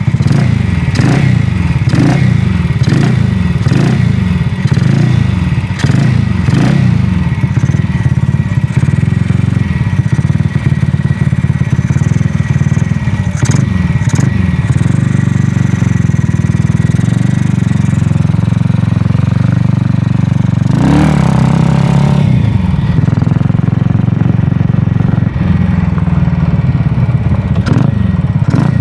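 Aermacchi motorcycle engine running on its first start after a new cylinder head and carburetor were fitted. The throttle is blipped again and again, about once a second, for the first several seconds. There is a bigger rev a little past two-thirds of the way through, and then the engine runs more steadily.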